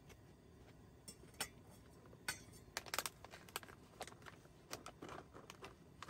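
Faint, irregular clicks and light taps, starting about a second in and clustering most strongly around three seconds in.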